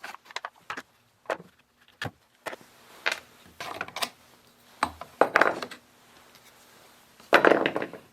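Handling noise of a chainsaw and hand tools on a workbench: scattered clicks and knocks of hard plastic and metal, with a louder clatter about seven and a half seconds in.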